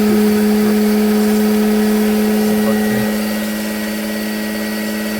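Small hydro turbine and generator running under water pressure: a loud, steady hum with one strong constant low tone over a rushing hiss. It swells slightly just before the start and eases a little about three and a half seconds in.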